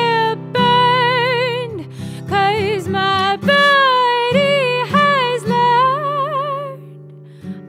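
A woman singing long, wavering held notes over strummed acoustic guitar; her voice falls away near the end and the guitar rings on alone before a fresh strum.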